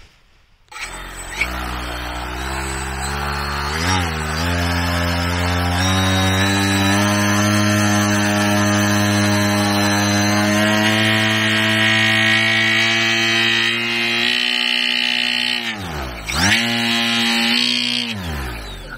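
Gasoline paramotor engine and propeller running on the ground. The revs climb over the first few seconds and hold steady, then drop sharply and pick up again twice near the end.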